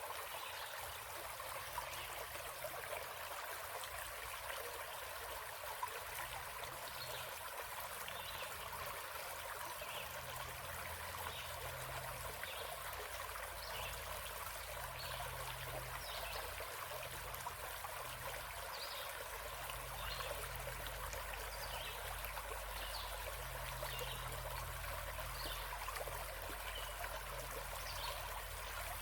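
Small forest stream trickling steadily, with short, faint high-pitched sounds recurring about once a second through it.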